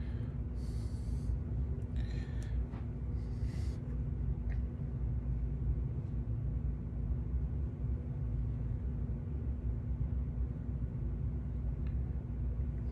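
Steady low room hum with a faint constant tone, and a couple of short, soft breathy hisses.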